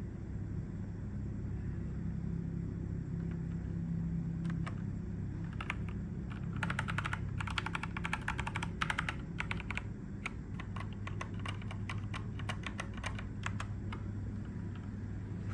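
Typing on a JEDEL KL150 mechanical keyboard. Key clicks begin a few seconds in, come as a fast run of keystrokes in the middle, then continue as scattered presses, over a steady low hum.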